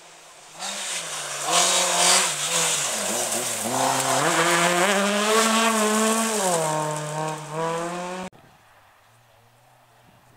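Rally car driven hard on a gravel stage, its engine revving with the pitch climbing and dipping through gear changes, over a hiss of tyres on loose gravel. The sound cuts off suddenly about eight seconds in.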